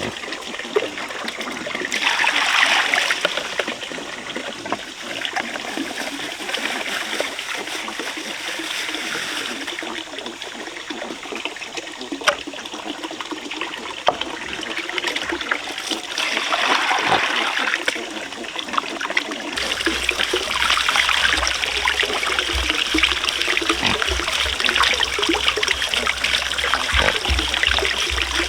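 Water trickling and splashing steadily, with scattered small clicks and knocks. A low rumble joins about two-thirds of the way through.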